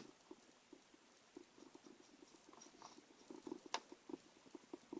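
Faint, rapid small ticks of a screwdriver turning an M2.5×5 mm screw into a laptop's plastic bottom case, with a sharper click at the start and another about a second before the end.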